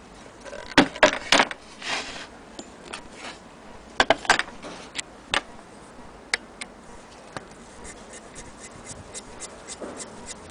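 Antique Willcox & Gibbs hand-crank sewing machine being handled and turned by hand: a few loud knocks and clunks in the first half, then light, even ticking of the mechanism at about four a second as the handwheel is cranked.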